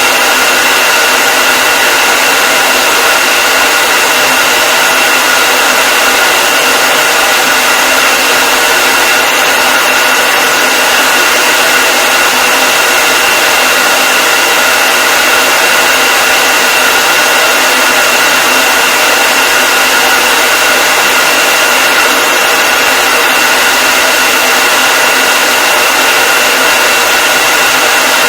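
Hair dryer running continuously: a loud, steady rushing hiss of blown air with a constant high whine from the motor and fan.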